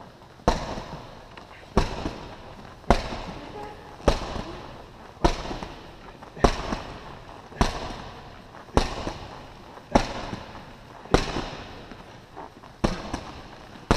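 Medicine ball thrown against a wall over and over, each throw landing with a sharp thud that echoes, about once every 1.2 seconds, roughly a dozen times.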